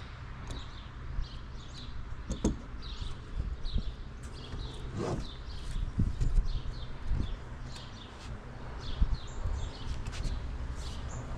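Small birds chirping in many short, quick calls throughout, over a steady low rumble. A few dull knocks sound, the loudest about six and nine seconds in.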